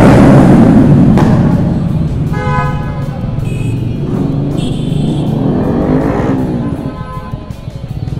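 Motorbike and scooter engines running in road traffic, with vehicle horns honking several times, the first about two and a half seconds in.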